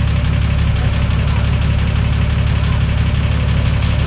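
Off-road 4x4's engine running steadily at low revs, a continuous low rumble with an even pulse.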